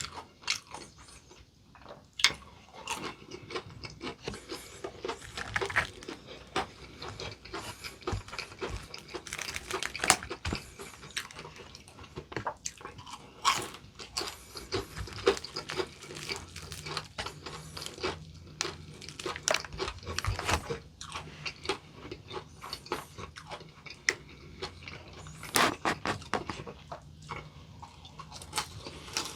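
Close-up chewing and biting into potato-crusted fried chicken: many sharp, irregular crunches of the crisp coating, with chewing in between.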